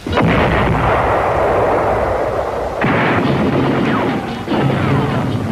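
Artillery fire: a sudden blast, then a loud continuing din of gunfire, with further blasts about three seconds and four and a half seconds in.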